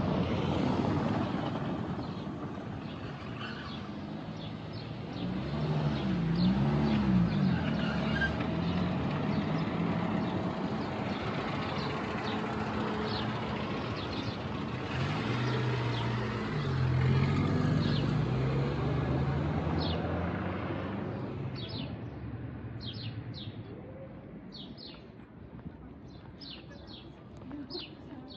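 A car engine running close by as the car creeps along a narrow alley, its pitch rising and falling twice. The engine fades away after about twenty seconds, leaving small birds chirping in quick repeated calls.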